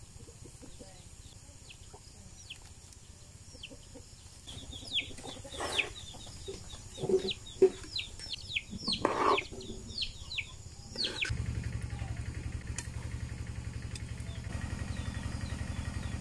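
Chickens clucking, a run of short calls in the middle of the stretch. A steady low hum with a fast pulse starts about eleven seconds in.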